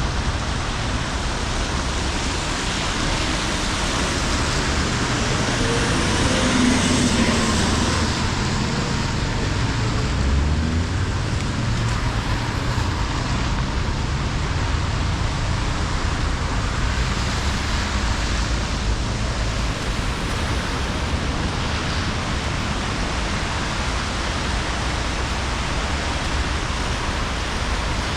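Rainy city street ambience: steady traffic noise with a vehicle passing about seven seconds in.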